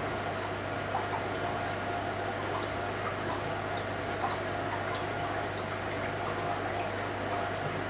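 Aquarium filter running: a steady low hum with water trickling and a few faint drips.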